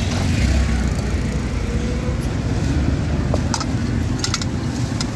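Street background noise: a steady low rumble with a few short clicks in the second half.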